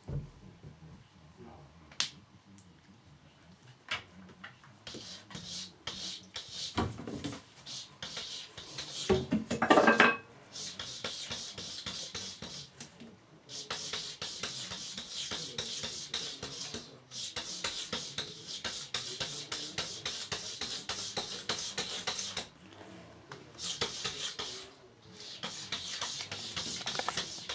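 Cat chewing and crunching a raw chick, in stretches of crunching broken by short pauses. There is a brief louder sound about ten seconds in.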